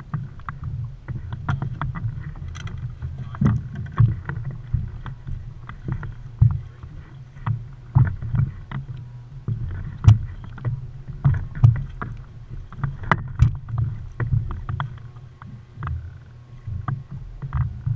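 A small open fishing boat rocking on choppy sea, with water slapping the hull and irregular knocks and clicks from tackle and gear being handled on board, over a steady low rumble.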